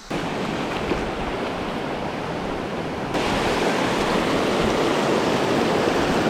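Flowing river water rushing, a steady noise that gets louder and brighter about three seconds in.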